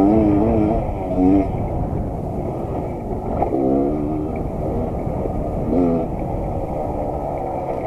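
Suzuki TS125 single-cylinder two-stroke engine running steadily, its pitch swinging up and down with throttle blips near the start, around three and a half seconds in and again near six seconds.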